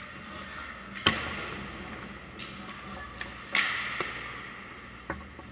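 Ice hockey practice on a rink: a sharp knock about a second in, then a louder scraping swish about three and a half seconds in, with a few lighter clicks over a steady low hum.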